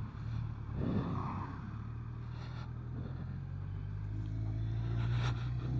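BMW K1200 motorcycle's inline-four engine running steadily on the move, growing gradually louder.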